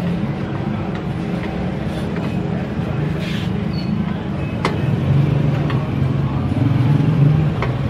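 A steady low machine hum over street noise, growing louder about five seconds in, with a few light clicks.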